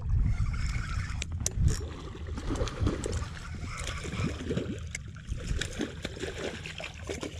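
Wind rumbling and buffeting on an open microphone, strongest about a second or two in, with crackling and rustling of dry marsh grass brushing close by and a few sharp clicks.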